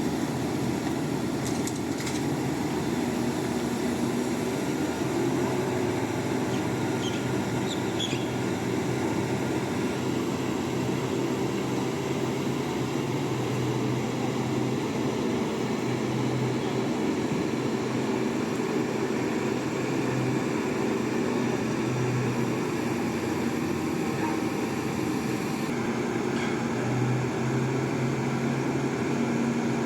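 Diesel engine of a mobile crane running steadily under load, a continuous low drone with small shifts in its pitch.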